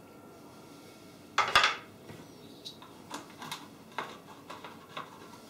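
Handling of a plastic olive-oil bottle and its cap on a kitchen counter: one sharp knock about one and a half seconds in, then a run of light clicks and taps.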